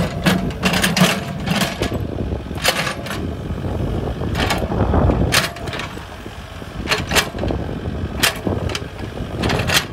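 IHI mini excavator's diesel engine running steadily as the bucket digs and scrapes soil, with frequent sharp knocks and clanks from the bucket and clods.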